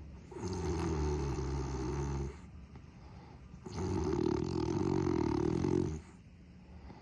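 Person snoring: two long snores of about two seconds each, the first starting just after the beginning and the second about halfway through, with quieter pauses between them.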